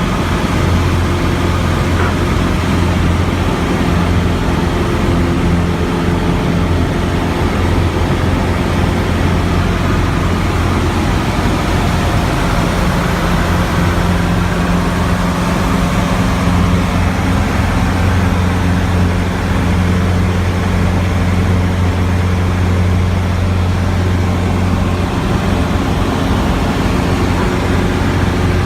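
Cessna 150's four-cylinder Continental O-200 engine and propeller in flight, a loud, steady drone with a deep hum, its pitch shifting slightly a few times.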